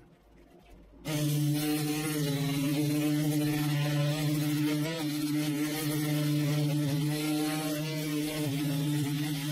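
A handheld electric power sander switches on about a second in and runs steadily with a low hum over a wide hiss, sanding down a cured epoxy repair in a fiberglass boat overhead.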